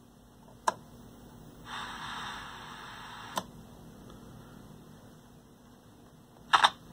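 Slide switches on an RCA AXR054W portable radio/TV clicking: one click about a second in, another about three and a half seconds in, and two quick, louder clicks near the end. Between the first two clicks, the set's speaker gives a short stretch of faint hiss, with no station coming through on FM.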